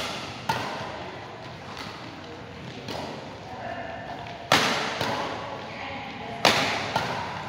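Badminton rackets striking a shuttlecock in an indoor hall: a few sharp hits, each echoing briefly off the walls, the loudest two about 4.5 and 6.5 seconds in.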